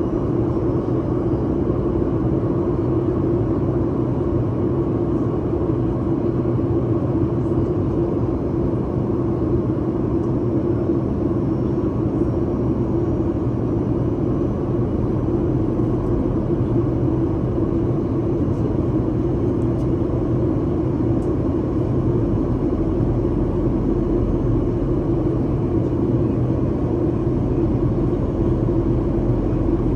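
Steady cabin noise of an airliner in flight, engine and airflow noise blended into an even drone with a low hum.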